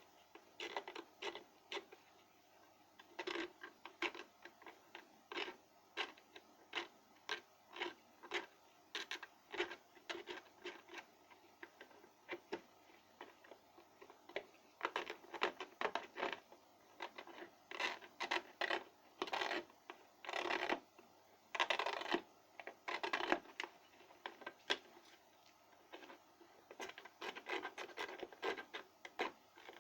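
Irregular clicks, scratches and rubbing of small hard parts being handled, with a busier run of longer scrapes in the middle.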